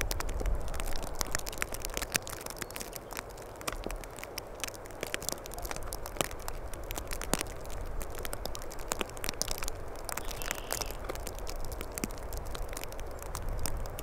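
Hand pruning shears snipping woody shrub stems, with irregular crackling and ticking of twigs being handled, over a low wind rumble on the microphone.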